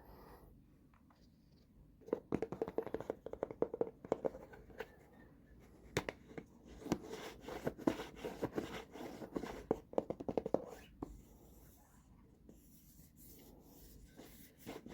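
Fingertips and nails tapping rapidly on makeup containers and compacts, in quick runs of many taps a second, which stop a few seconds before the end.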